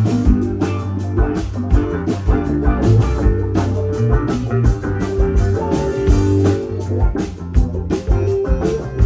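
Live rock band playing an instrumental passage: electric and acoustic guitars over bass, keyboards and a drum kit keeping a steady beat.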